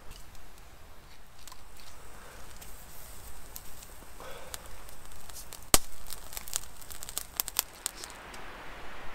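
Wood fire crackling, with a run of sharp pops and one loud crack about halfway through.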